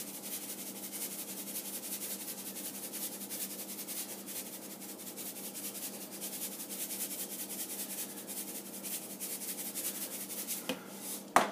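Shaker of kosher salt being shaken repeatedly over raw baby back ribs: a quick, steady rattle of salt in the plastic shaker. A sharp knock near the end.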